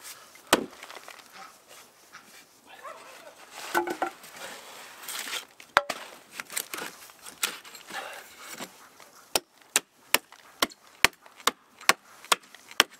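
A wooden baton knocking on the back of an axe head to drive it through a birch log and split it. A few single knocks come first, then a steady run of sharp knocks, about two a second, from about nine seconds in. A dog whines briefly about four seconds in.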